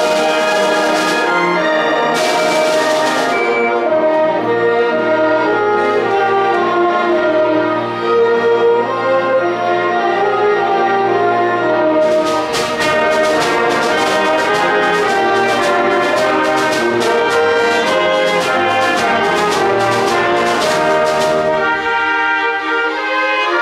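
Full symphony orchestra playing a festive piece in sustained chords, with brass prominent over the strings. From about halfway to near the end, percussion adds a steady beat of sharp, bright strokes.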